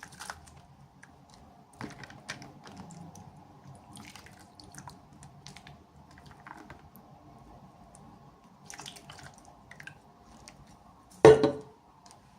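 Small clicks, taps and rustles of plastic toy packaging and miniature pieces being handled, with one loud clack near the end.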